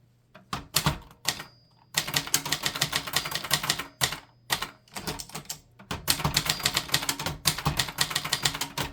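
Brother Deluxe portable typewriter being typed on: a few single keystrokes, then fast runs of type bars striking the platen with brief pauses between runs. The machine is thinly insulated, so the strikes come through with a bright clack.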